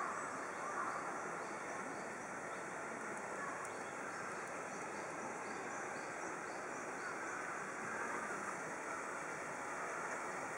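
Steady outdoor background noise, with faint high ticks repeating about twice a second through the middle few seconds.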